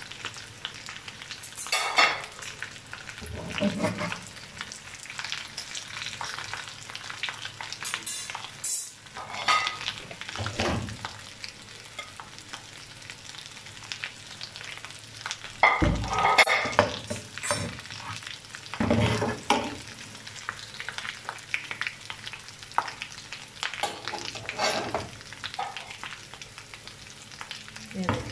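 Egg-coated potato cutlets sizzling and crackling in hot oil in a frying pan. Now and then a louder clatter of metal tongs or a ladle against the pan as the cutlets are lifted out of the oil.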